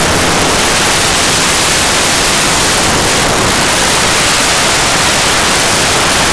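A pack of dirt-track racing motorcycles at full throttle away from the start, so loud that the recording overloads into a steady, harsh, hiss-like roar with no single engine note.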